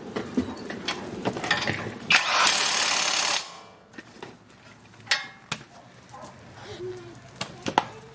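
Power impact wrench running in one burst of about a second and a half, tightening hub bolts, among metal tool clinks and knocks.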